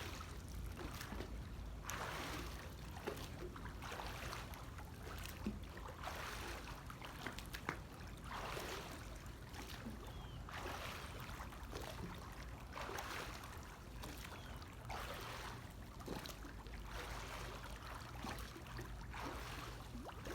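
Pool water sloshing and splashing in a regular rhythm, about one surge every two seconds, as a person does jumping jacks in the water.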